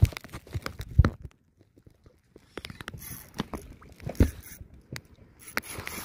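Irregular clicks, knocks and rustles of handling, with a few heavier low thumps: one about a second in and one about four seconds in.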